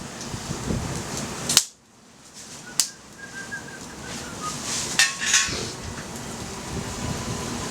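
Wood fire in a fire stand crackling, with several sharp pops. Through the middle a thin whistling tone slides slowly down in pitch.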